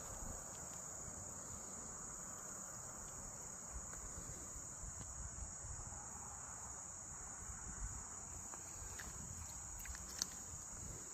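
Steady, high-pitched chorus of insects calling without a break, with a single light click near the end.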